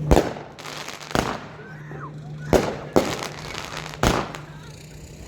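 A 500-gram, 18-shot angled firework cake firing. Five sharp bangs go off at an uneven pace, roughly one a second, with two close together in the middle, each trailing off in a short rumble.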